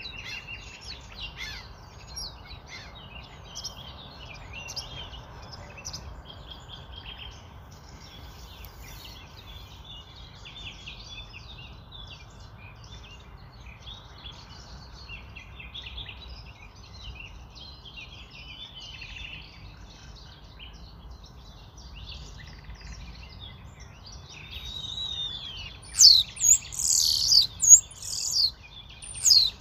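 Birds chirping and calling throughout, many short, high chirps over a low, steady background noise, with a run of much louder, sharper calls near the end.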